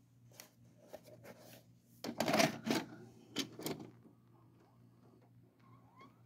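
A VHS cassette being handled and pushed into a VCR's front slot, with a run of clicks and clunks as the loading mechanism takes the tape, loudest about two seconds in, over a low steady hum.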